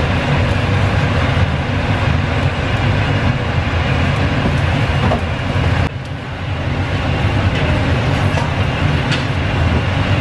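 A steady, loud mechanical rumble with a low hum and a hiss above it, at the charcoal grill where sea bream are roasting on skewers. It breaks off sharply for a moment about six seconds in, then carries on.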